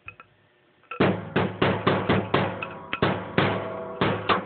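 A quick series of sharp metal knocks on a Kawasaki KZ900 fork tube, about three a second, starting about a second in, each leaving a brief ring. The tube is being knocked to shake its stuck internals loose.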